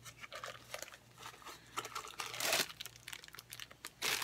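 Plastic packaging crinkling and rustling as an item is pulled out of its wrapping, in uneven bursts, loudest about two and a half seconds in and again near the end.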